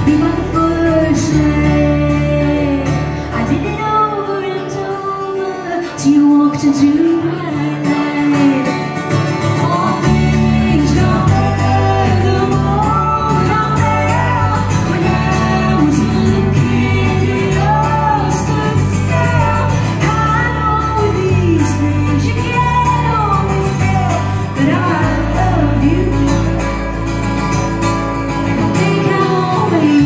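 Live band playing a song: a woman sings lead over a strummed acoustic guitar and an electric bass.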